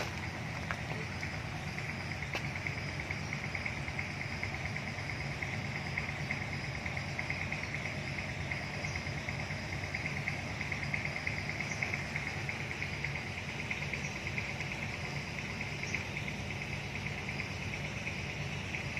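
Insects chirring in a steady, unbroken high-pitched trill, over a steady low hum.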